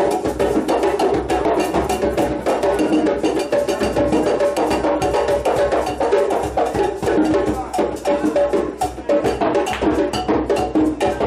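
Percussion music: fast hand drumming, a dense, unbroken run of sharp strikes.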